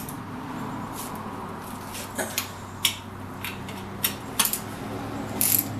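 Irregular metallic clinks and clicks of steel bolts, washers and a wrench being handled as a pipe vise is bolted down to its steel mounting plate, over a faint low hum.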